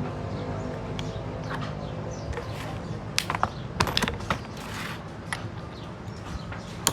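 Metal tools clinking and tapping against metal engine parts, several sharp separate clinks from about three seconds in, over a low engine hum that fades away.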